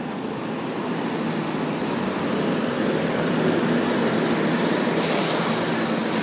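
City bus passing close by, its engine and tyres running as a steady drone with a low hum that swells as it goes past. About five seconds in, a loud hiss cuts in and runs for about a second.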